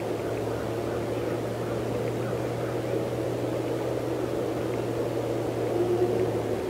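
Steady low drone with a constant hum beneath it, and a short, faint higher tone about six seconds in.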